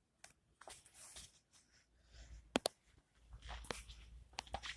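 Faint handling noise: soft rustling with a low rumble, broken by a few sharp clicks, one about two and a half seconds in and several close together near the end.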